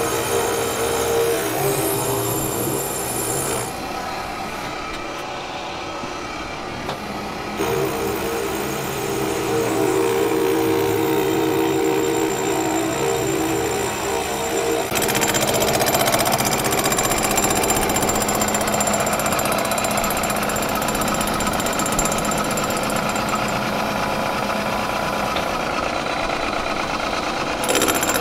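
Milling machine face-milling the cast-iron flange of a turbocharger exhaust housing: the spindle runs with a steady whine while the cutter grinds across the metal, skimming a warped flange flat. The cutting noise drops for a few seconds about four seconds in, then comes back.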